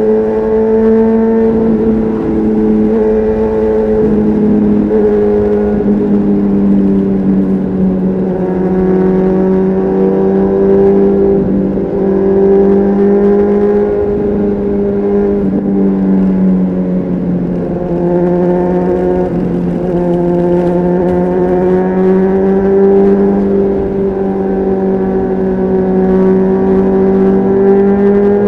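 Honda CBR600RR's inline-four engine through a Leo Vince aftermarket exhaust, pulling at steady high revs under way. Its note sags a little and climbs back a couple of times as the throttle is eased and rolled on again.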